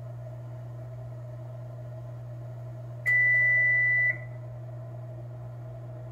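A single electronic beep: one steady high tone about a second long that starts sharply about three seconds in, over a steady low hum.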